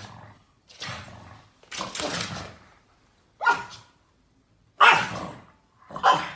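Pug barking in short bursts, about five barks spaced roughly a second apart.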